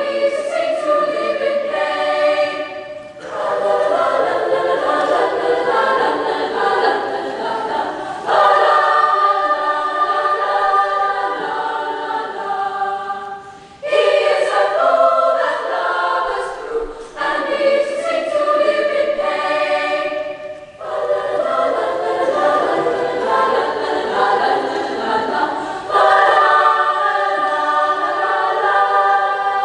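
A mixed-voice choir singing in sustained phrases, with short breaks between them, growing louder at the start of new phrases about 8, 14 and 26 seconds in.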